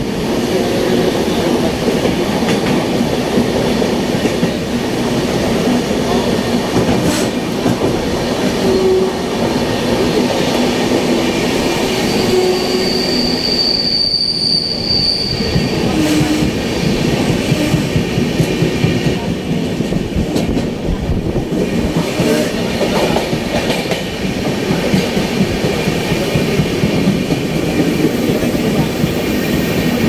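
A moving train running steadily, its wheels rumbling on the rails. A thin high wheel squeal lasts a few seconds about halfway through.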